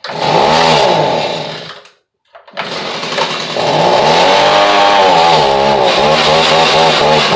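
Small two-stroke engine of a handheld leaf blower starting up: it runs for about two seconds and dies, catches again a moment later and speeds up to run steadily, its pitch rising and falling.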